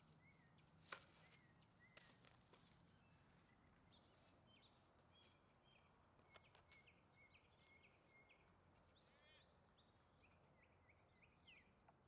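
Near silence: faint outdoor ambience with scattered small bird chirps and a quick trill around nine seconds in, plus a faint click about a second in.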